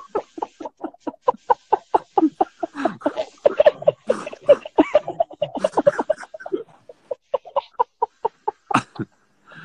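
Men laughing hard in a long run of quick, short cackles, several a second, with a brief break near the end.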